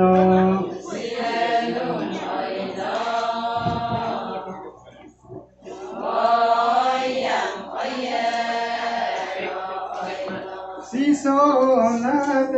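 A women's chorus singing an Adi ponung song in unison, phrase after phrase, with a brief break about five seconds in.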